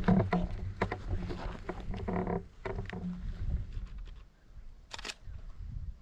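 Bicycle rolling slowly over a rough sandy forest track, with rattles, clicks and knocks from the bike and the camera mount over a low rumble. It quietens about four seconds in, and a single sharp click comes about five seconds in.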